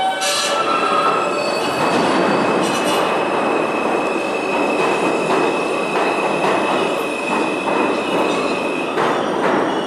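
R160 subway train pulling out of an underground station: running noise of wheels and cars with a steady high-pitched squeal through most of it, then wheels clacking over rail joints near the end.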